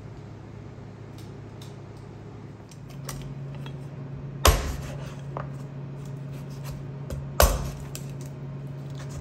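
A knife striking down hard on a cutting board twice, about three seconds apart, while a whole chicken is butchered, with a few small clicks of knife and board in between. A steady low hum sits under it from about three seconds in.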